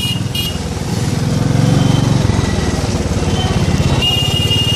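Motorbike engine running at low speed with a quick, even firing pulse, getting louder about a second in. A vehicle horn sounds with a steady high tone near the end.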